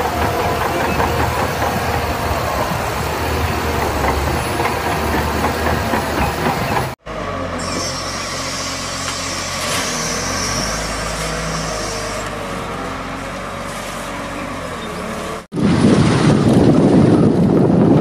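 Heavy diesel earthmoving machines running, in three short cuts. First a crawler bulldozer's engine runs steadily while it pushes sand. About seven seconds in, a wheel loader's engine takes over with a hiss for a few seconds, and near the end a louder, rougher stretch comes in as a large wheel loader drives along.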